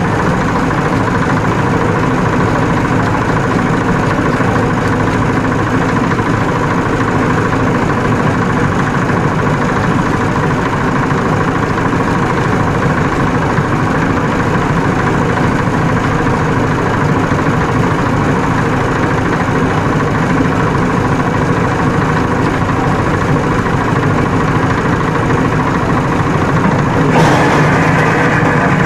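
An engine idling with a steady, even drone, unchanging throughout; a rougher, hissier noise joins it near the end.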